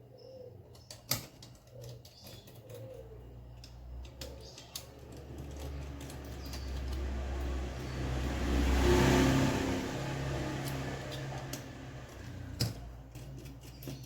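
A passing vehicle: engine rumble and road noise that swell to a peak about nine seconds in, then fade. A few sharp clicks, one near the start and one near the end.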